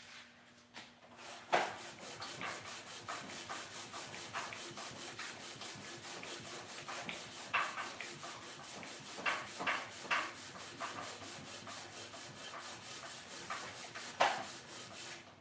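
Rapid back-and-forth hand scrubbing on an LS cylinder head during cleanup, about four to five even strokes a second, with a few louder knocks of the tool or part now and then.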